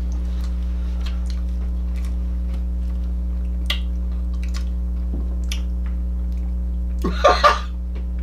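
Quiet eating sounds over a steady low electrical hum: chewing and the faint clicks of a metal spoon in an ice cream tub, with one short louder breathy mouth sound about seven seconds in.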